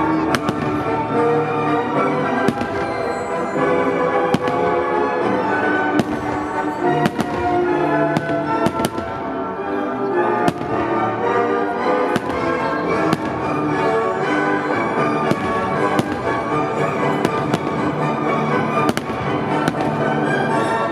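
Aerial fireworks shells bursting with sharp bangs, irregularly about once a second, over continuous music.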